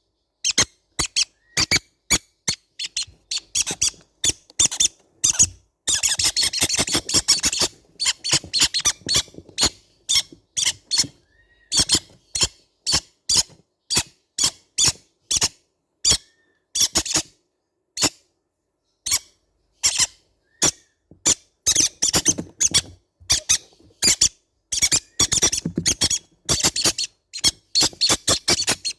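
Baby green-cheeked conures calling: short, high squeaks repeated several times a second, coming in thicker bursts about a quarter of the way in and again near the end.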